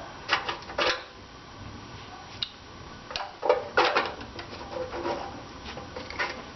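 Hand tools and small metal parts clinking and clattering in irregular short knocks, about a dozen, during hands-on repair work on a tractor.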